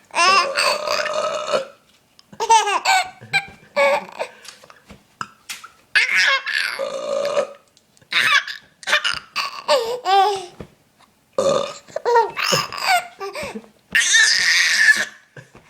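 A man burping loudly several times, long drawn-out burps, each answered by a baby's bursts of laughter.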